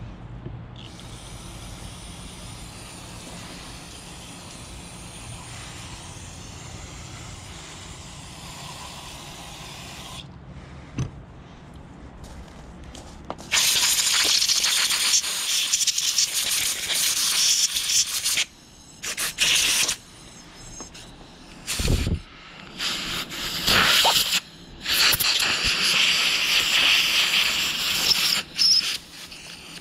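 Aerosol carburetor cleaner spraying steadily into a carburetor for about ten seconds. From about halfway, a compressed-air blow gun blasts air through the carburetor body in loud hissing bursts, on and off several times, to clear its passages.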